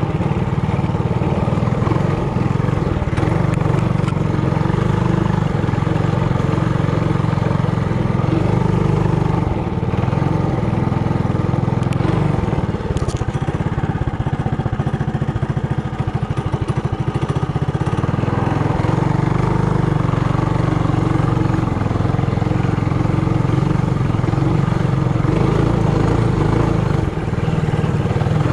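Single-cylinder engine of a Trailmaster Hurricane 200X mini bike running steadily while riding, its speed holding fairly even throughout.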